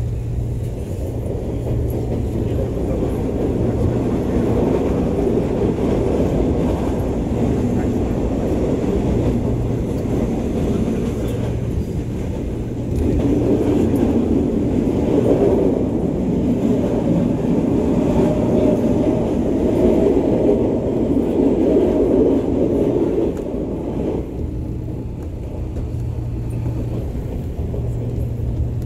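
Running noise of an electric commuter train heard from inside the carriage: a steady rumble of wheels on rail with a low hum underneath. It grows louder for about ten seconds midway, then eases.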